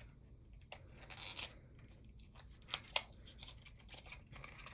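Fingers working open a small, hard-to-open product box: faint scratching and short tearing scrapes with scattered clicks. The sharpest click comes just before the three-second mark.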